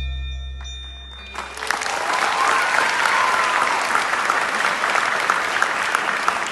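Sustained notes of the dance music fade out, then audience applause breaks out about a second and a half in and carries on steadily.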